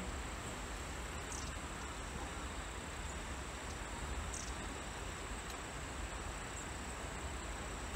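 Steady outdoor ambience: an even hiss over a low rumble, with a faint, steady high trill of insects and a few brief high chirps.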